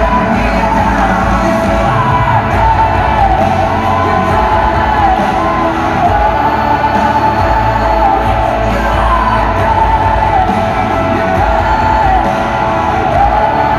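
Loud live contemporary worship band music: a singer holds long, gliding melody lines over a full band with heavy bass.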